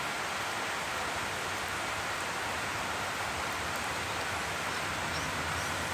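Heavy rain coming down hard, a steady even hiss.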